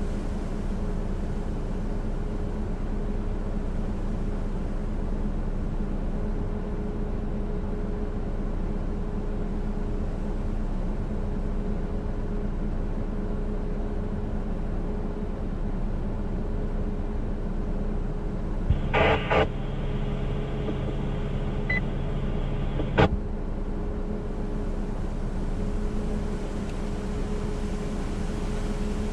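Steady hiss with a low hum. About 19 s in, a radio channel opens with a few clicks and carries a brief empty signal with a low hum for about four seconds, then cuts off with a click: a transmission with no voice.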